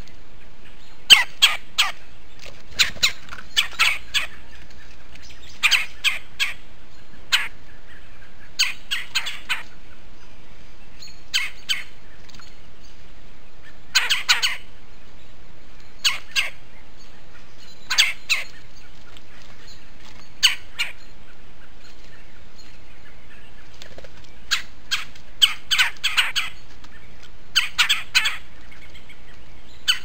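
A bird calling with short, sharp notes in irregular clusters of one to five, separated by pauses of up to a few seconds and busiest near the end.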